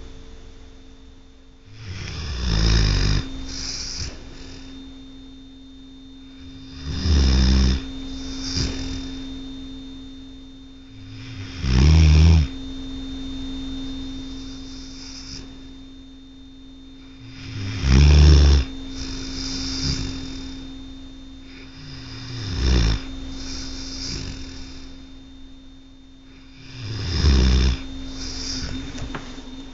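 Dog snoring in its sleep: six loud snores about every five seconds, each followed by a softer breath out, over a steady hum.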